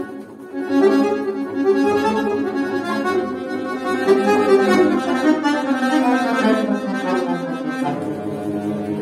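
Chromatic button accordion playing a solo passage of quick melodic lines over chords. There is a short dip just after the start, and it settles onto a held low chord near the end.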